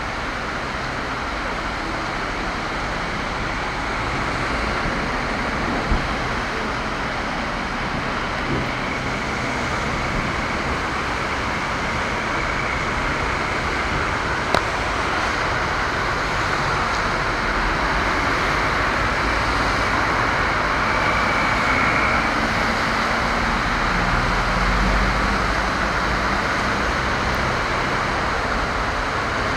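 Heavy rain pouring onto a flooded street while cars and minibuses drive through the water, their tyres hissing and throwing up spray. A deeper engine rumble swells about 25 seconds in, and two short knocks stand out at about 6 and 14 seconds.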